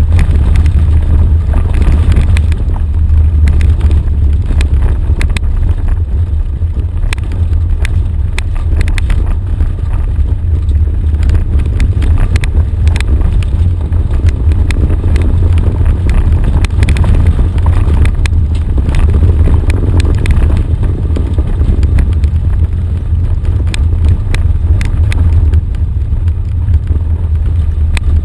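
Off-road vehicle driving over a rough dirt track, heard from inside the cab: a loud, steady low rumble with frequent rattles and knocks.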